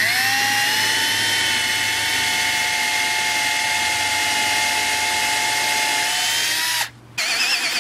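Cordless drill spinning a countersink bit into a wooden 2x4 in one steady run of about seven seconds, its pitch settling just after it starts. It stops briefly near the end, then starts again with the pitch wavering as the bit bites into the wood.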